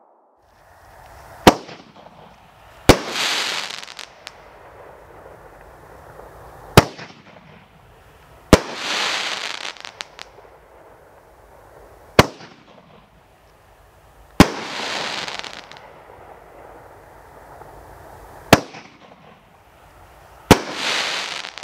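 A nine-tube consumer fireworks cake firing one shot at a time: four times over, a sharp lift thump, then about a second and a half to two seconds later an aerial burst trailing off in about a second of hissing crackle.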